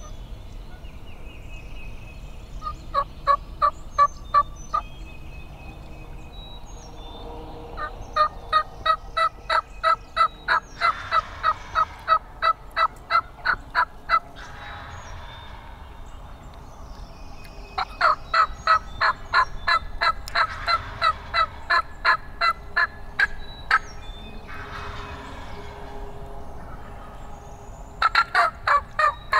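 Turkeys calling: long runs of loud, evenly spaced yelps, about four a second, coming in four bursts, with fainter turkey calls between them. Small birds chirp faintly in the background.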